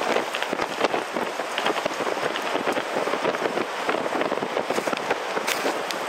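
Hurricane-force storm wind rushing and buffeting the microphone: a loud, dense hiss full of fine crackles, rising and falling with the gusts.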